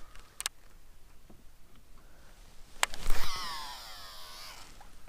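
A fishing reel during a cast: a sharp click about three seconds in, then the spool whirring as line pays out, its pitch falling steadily for about a second and a half as the spool slows. A couple of faint clicks come near the start.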